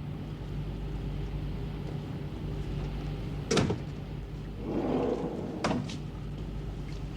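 A door being opened and closed: one sharp clack about halfway through, a short swish, then a second click, over a steady low machinery hum.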